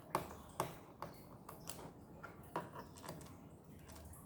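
Scattered sharp clicks and taps of a screwdriver and small screws against a laptop's plastic bottom case as the case screws are taken out, the loudest near the start.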